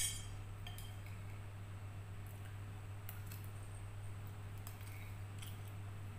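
Spoon clicking and scraping lightly on a ceramic plate of fried instant noodles and rice, with soft eating noises. The scattered small ticks follow a sharp clink right at the start, over a steady low hum.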